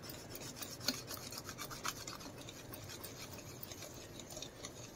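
Wire balloon whisk beating thin cake batter in a plastic bowl: soft, quick, repeated scraping and swishing strokes, a few knocking a little harder against the bowl.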